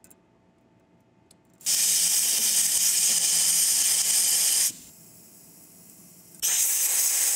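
Compressed-air blow gun blasting into a tapped hole to clear out the pieces of a broken tap cut apart by EDM: a loud hiss starting nearly two seconds in and lasting about three seconds, a much softer hiss, then a second loud blast near the end.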